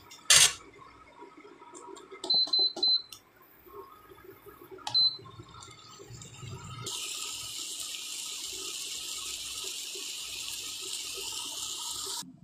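A sharp click, then short high electronic beeps: three in quick succession about two seconds in and one more about five seconds in. About seven seconds in a steady hiss sets in and cuts off sharply near the end.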